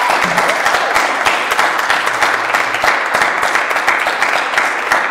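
A small audience applauding, with steady clapping.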